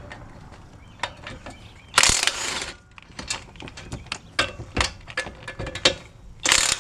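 Socket ratchet with an 18 mm socket clicking as it loosens the brake caliper bracket bolts. There are quick runs of clicks, with a longer rasping run about two seconds in and another near the end.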